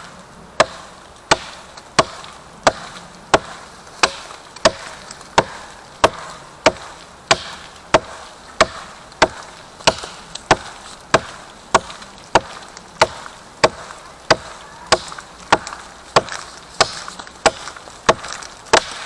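Small Fiskars hatchet chopping into a fallen log, about thirty steady blows at roughly three every two seconds.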